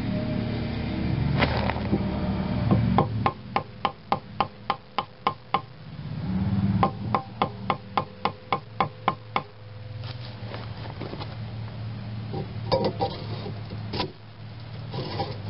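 Hammer striking a wooden board held against a generator exhaust pipe, tapping an exhaust fitting onto the pipe: two runs of quick, even taps, about four a second, then a few single knocks near the end.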